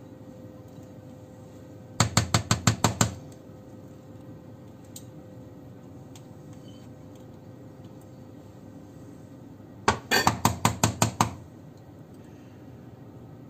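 A spatula knocked rapidly against the rim of a glass mixing bowl to shake off the last of the cake batter: two quick runs of about eight sharp knocks, about two seconds in and again about ten seconds in.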